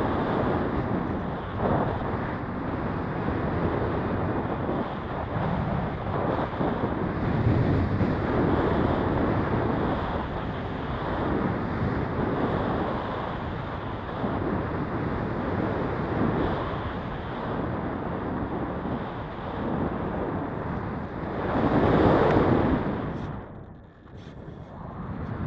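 Wind rushing over the microphone: a loud, steady buffeting rush that swells and eases, loudest about 22 seconds in, then drops away briefly near the end before picking up again.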